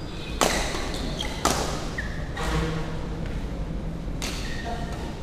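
Badminton rackets striking the shuttlecock in a doubles rally. There are four sharp smacks about a second apart, each ringing briefly in the hall, with a few short squeaks in between.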